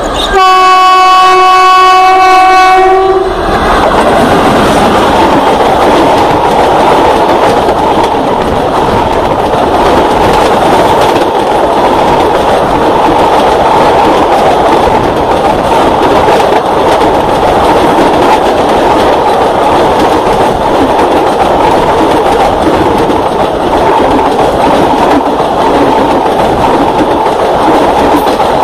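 WAP-1 electric locomotive sounding one long horn blast that stops about three seconds in, then the express's coaches running past at speed with a steady rush and clatter of wheels on rail.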